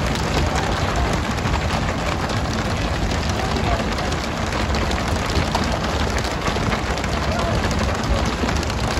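Steady rushing of water spray and sea around a pole-and-line tuna boat, over a low rumble, with many quick slaps and knocks as skipjack tuna are hooked and flung onto the deck one after another.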